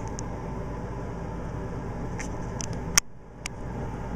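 Steady mechanical hum. A sharp click comes about three seconds in, the hum dips briefly, and a second click follows half a second later.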